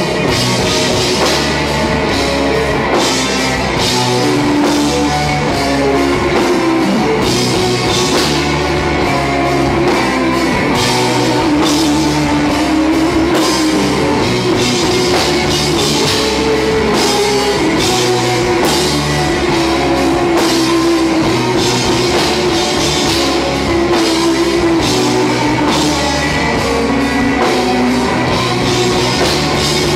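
Live rock band playing loudly and without a break: electric guitar over a drum kit with cymbals keeping a steady beat.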